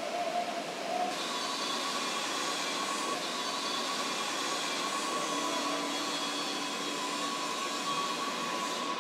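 Steady factory-floor machinery noise from the car-body production line: a continuous whirring hiss with faint steady whines. The sound shifts slightly about a second in.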